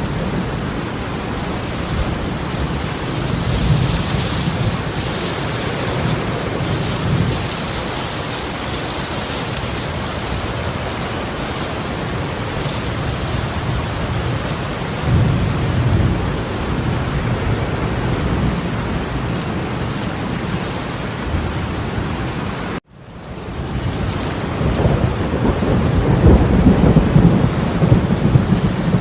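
Heavy torrential rain pouring steadily, with deep rumbling swells rising and falling every several seconds. About three-quarters of the way through, the sound cuts out for a moment and fades back in.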